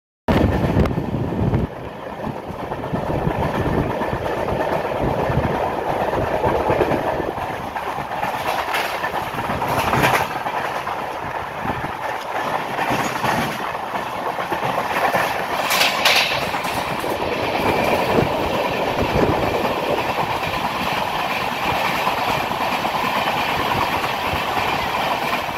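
Running noise of a moving passenger train, a continuous rumbling rush with wheels clattering over rail joints, sharpest a few times in the middle, while a suburban electric multiple unit passes close by on the next track.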